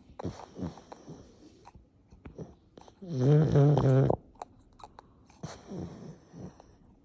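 Pug snoring: soft, noisy breaths with one loud, buzzing snore about three seconds in, and small wet clicks in between.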